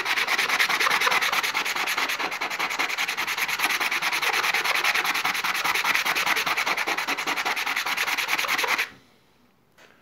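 A black rough stone rubbed by hand on wet sandpaper in rapid back-and-forth strokes, grinding a flat face to open the stone and show its pattern. The rasping stops abruptly about nine seconds in.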